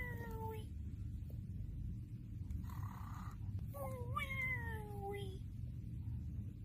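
A cat meowing twice, in long calls that slide slowly down in pitch: the first fades out about half a second in, the second comes about four seconds in and lasts nearly two seconds. A short breathy sound falls between them, over a steady low hum.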